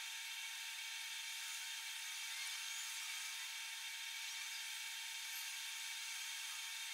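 Large pot of curry boiling on a gas stove: a steady hiss with a faint constant high whine and no distinct pops.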